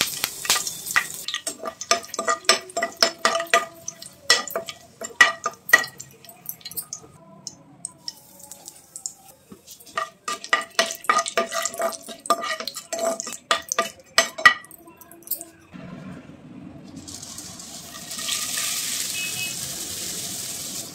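Metal slotted spatula stirring in a kadai, clinking and scraping against the pan in two long bouts of quick ringing strikes. This is followed by a steady sizzling hiss of spiced oil frying, which grows louder near the end as puffed rice is poured into the pan.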